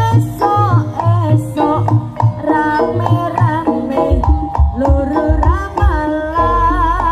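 Live kuda lumping (jaranan) music for a singo barong dance: a wavering melody that slides between notes, over drum beats about twice a second, with deeper, heavier strokes in the middle.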